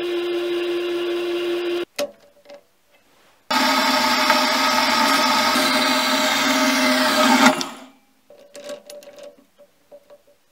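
A lathe runs steadily and stops about two seconds in. After a short pause, a small metal-cutting bandsaw runs for about four seconds, parting off a knurled knob, with a high tone that slides down just before it stops. A few light clicks of the small part being handled follow.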